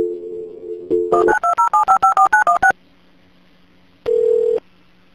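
Telephone dial tone, then about ten touch-tone (DTMF) keypad beeps in quick succession as a number is dialled, then a single short beep about four seconds in.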